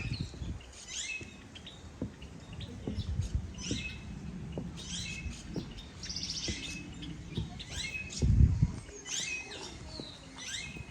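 Birds chirping over and over in quick, sweeping calls. A low rumble runs underneath, with a loud low thump about eight seconds in.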